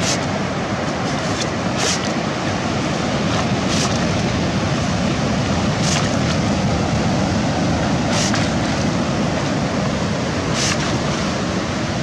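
Steady surf washing over the wet sand. About every two seconds, six times in all, a short splashing rush as a PVC ghost-shrimp suction pump dumps its load of sand and water.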